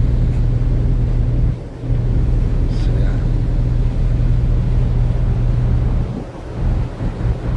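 Wind buffeting the microphone on a ship's open bridge wing: a loud, low rumble that drops away briefly about two seconds in and again near the end.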